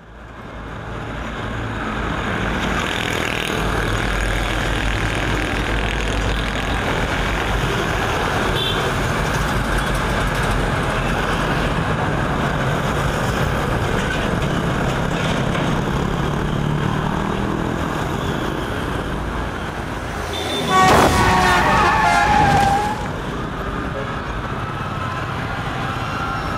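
Road traffic ambience with vehicles running steadily, then a sudden loud burst of about two seconds with a pitched, slightly falling blare of horn or screech, the truck-collision moment of a crash sound effect.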